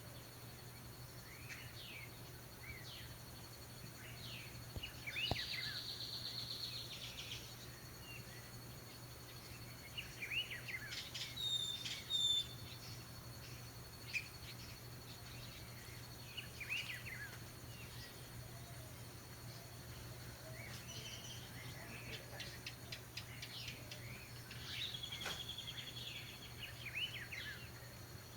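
Calandrias (orioles) calling: scattered short, sharp whistled notes and chatter, with a few higher drawn-out phrases, the loudest about 12 seconds in. A steady low hum and a faint constant high tone run underneath.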